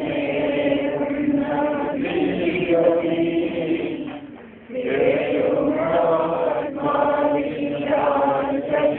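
A group of voices singing a slow prayer chant in unison, holding long notes, with a brief pause for breath about four and a half seconds in.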